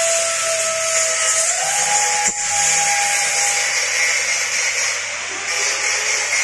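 Vibratory bowl feeder running with rubber O-rings on its track, heard as a steady hiss. A held tone steps up in pitch about a second and a half in, and there is a single sharp click a little past two seconds.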